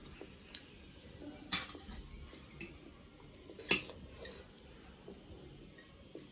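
Chopsticks clicking and tapping against a plate of noodles: a few short, sharp clicks, the loudest about a second and a half in and near four seconds in.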